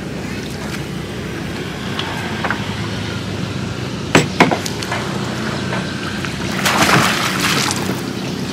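A man dropping into the river beside a small boat, a loud splash and sloshing of water near seven seconds in. Two sharp knocks come about four seconds in, over a steady low hum.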